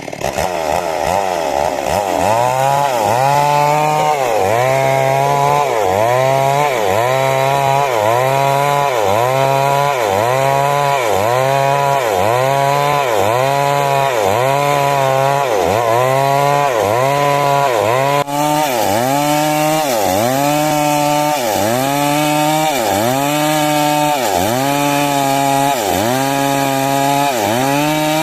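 Two-stroke chainsaw (a 382) running at high throttle while cutting wood. Its engine note dips and recovers about once a second as the cut loads and unloads it.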